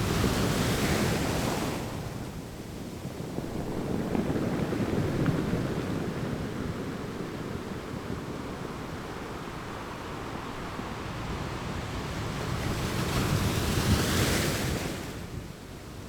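Ocean waves crashing onto rocks and washing back. There is a big crash near the start, a lower rumbling surge a few seconds in, and another loud crash about 13 seconds in.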